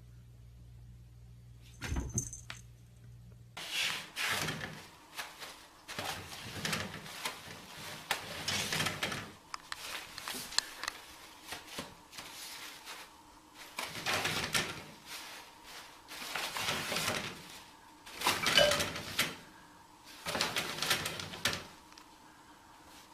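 A cat pawing at a sliding closet door, with one sharp knock of the door about two seconds in. Then a kitten tugging toilet paper off the roll and crumpling the loose paper in irregular bursts of rustling, the loudest late on.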